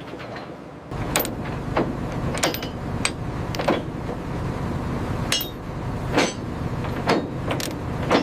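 Metal chains and lifting gear clanking, about ten sharp clanks at uneven intervals, over a low steady machinery rumble that starts about a second in.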